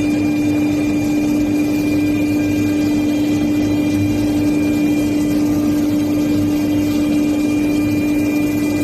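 CNC router spindle running steadily while carving a carbon fiber workpiece: one even, unchanging tone over a constant hiss of cutting noise.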